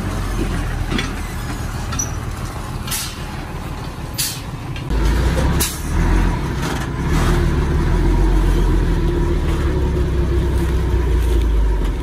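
Diesel engine of a loaded five-ton dump truck running as it manoeuvres, growing louder about five seconds in, with a few short hisses.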